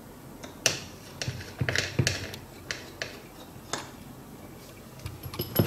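Irregular small, sharp clicks and taps of a precision screwdriver working tiny screws and metal brackets inside a metal phone housing, about a dozen in all, the loudest near the end.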